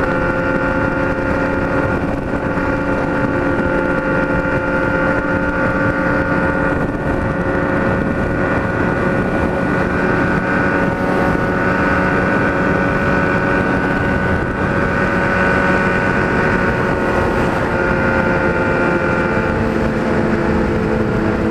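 Kawasaki Z1000 inline-four with a straight-piped 4-into-1 exhaust, running steadily at highway cruising speed, about 120 km/h, with wind rushing over the rider. The engine note drops slightly near the end.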